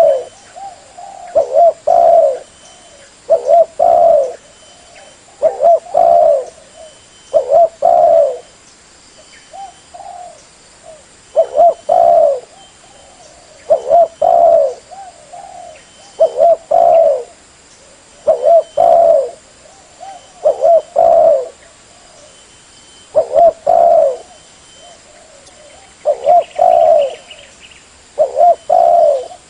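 Spotted dove (tekukur) cooing over and over as a lure call. Each phrase is a short group of low coos, often doubled, and the phrases come about every two seconds.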